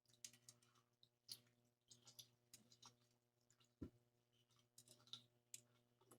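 Faint chewing: soft, irregular wet mouth clicks from a person eating seafood, with one short, soft low thump a little under four seconds in.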